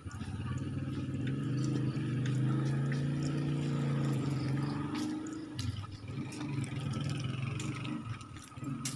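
A motor vehicle's engine running steadily with a low hum, which drops away about five and a half seconds in and comes back more unevenly.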